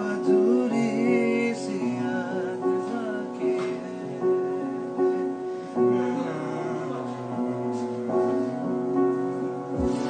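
A man singing a melody with wavering vibrato over held chords on an electronic keyboard.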